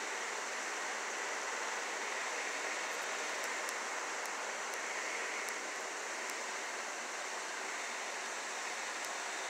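Steady, featureless hiss with a few faint ticks and nothing else: the noise floor of a silent home-movie film transfer.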